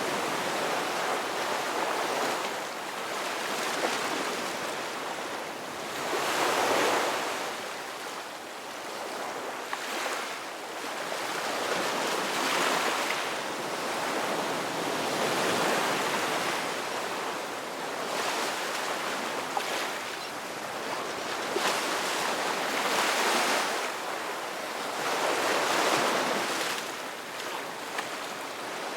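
Ocean waves breaking and washing up on a shore, the surf's rush swelling and falling back every few seconds.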